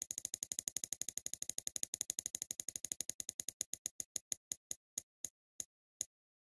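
Spinning prize-wheel ticking sound effect: rapid sharp clicks, about ten a second, slowing steadily to a few a second as the wheel comes to rest.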